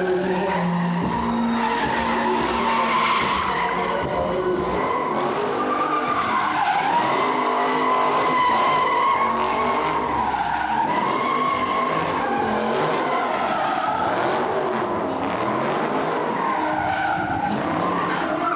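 Car tyres squealing without a break during drifting and donuts, the squeal wavering up and down in pitch, with engine noise underneath.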